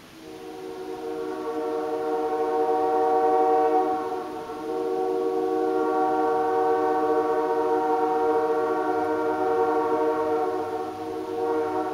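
Nathan AirChime J3 three-chime locomotive air horn blowing a long, steady chord. It swells in over the first couple of seconds, eases briefly about four seconds in and again near the end, then sounds on.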